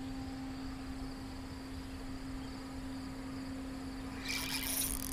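Insects chirping steadily and faintly over a constant low hum. About four seconds in, a spinning fishing reel starts being cranked, a busy mechanical whirr.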